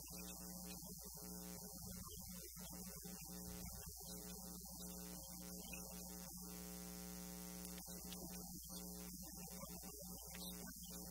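Steady electrical hum with a constant high hiss, unchanging throughout, with no audible speech.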